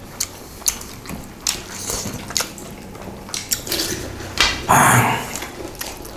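Close-miked eating noises: chewing and wet lip-smacking clicks from people eating rice and pork curry by hand. About four and a half seconds in, a louder breathy hiss lasting about half a second.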